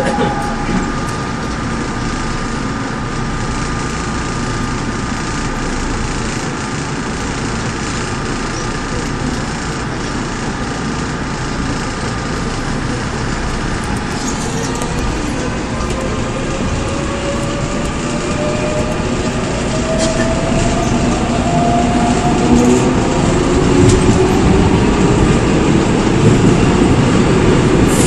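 Running sound inside a Seoul Metro 4000-series train car fitted with a Mitsubishi GTO VVVF inverter. Steady wheel and rail noise; from about halfway through, the inverter and traction motors whine in rising tones and the sound grows louder as the train accelerates.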